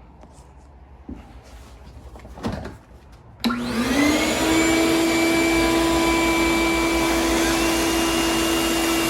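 A few light handling knocks, then about three and a half seconds in a shop vacuum switches on, spins up and runs with a steady whine and rush of air.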